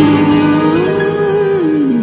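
A girl singing one long drawn-out note that dips, rises again and falls near the end, over sustained chords on an electronic keyboard organ.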